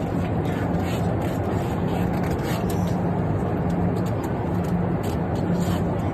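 Steady drone of an airliner cabin, with a low hum that swells and fades.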